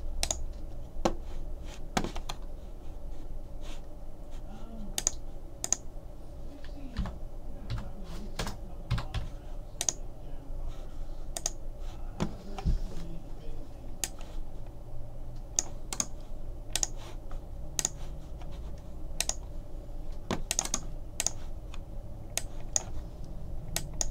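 Computer keyboard and mouse in use: scattered key presses and clicks, irregular and a second or so apart, as the list of teams is pulled up on screen.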